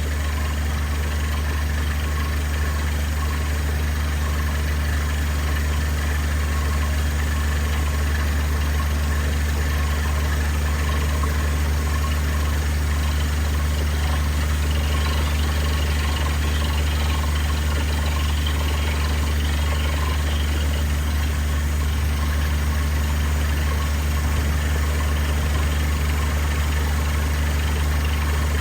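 Engine of a water-well drilling rig running steadily, a deep even hum with no change in speed.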